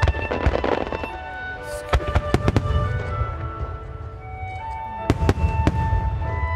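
Aerial fireworks shells bursting with sharp bangs, a cluster about two seconds in and another about five seconds in, over music with held notes.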